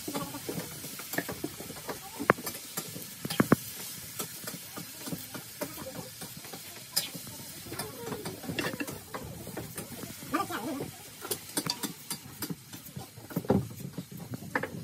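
Scattered sharp clicks and taps of a knife against a wooden chopping board as small red onions are peeled and trimmed, the two loudest clicks about two and three and a half seconds in, over a light steady hiss.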